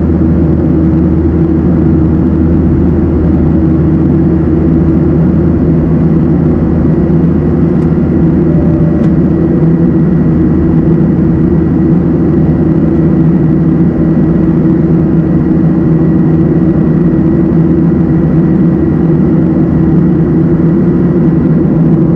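Cabin noise of a Boeing 737-700 in flight, heard from a window seat ahead of the wing: the steady drone of its CFM56-7B turbofan engines over the rush of airflow. A faint, thin steady whine joins about nine seconds in.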